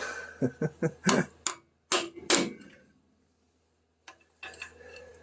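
Hammer striking a pry bar wedged at the joint between the exhaust pipe and the exhaust manifold of a Triumph Spitfire, about seven sharp metal knocks in quick succession, two of them loudest, as the stuck joint is driven loose. The knocks stop about two and a half seconds in.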